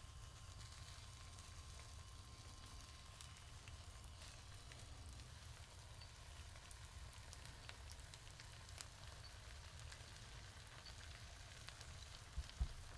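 Faint sizzle of beaten egg with chopped peppers frying in a nonstick pan, with scattered tiny crackles. A soft knock comes near the end.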